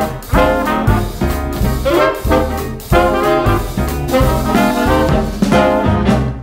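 Upbeat, brass-led swing-style background music with a steady beat, fading out near the end.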